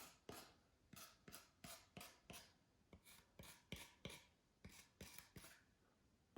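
Faint, quick scraping strokes of a hobby knife blade cutting into foam, about three a second.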